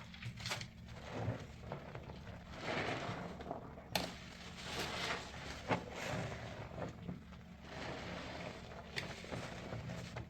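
Wet sponge loaded with soap paste being squeezed and worked, making irregular squelching swells with a few sharp pops.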